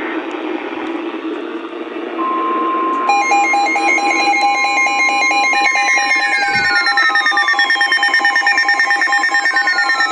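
Weather-radio hiss, then a steady 1050 Hz NOAA Weather Radio warning alarm tone from about two seconds in. About a second later, weather alert receivers' electronic alarms join it: fast repeating beeps and falling sweeps that recur every couple of seconds. The receiver is being triggered by the 1050 Hz tone rather than by the SAME header.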